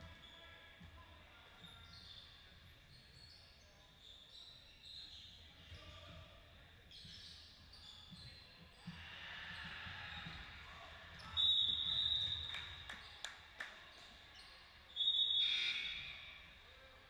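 Basketball game sounds in a gym: a ball dribbling and scattered player and crowd voices, with two loud, shrill referee's whistle blasts, one about 11 seconds in and one about 15 seconds in.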